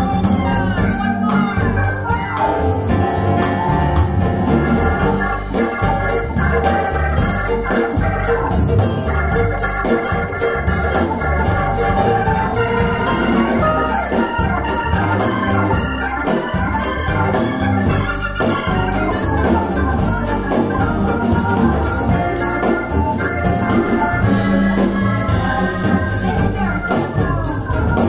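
Music played through a pair of B&W 706 S2 bookshelf speakers and picked up in the room, with held keyboard-like tones over a strong bass.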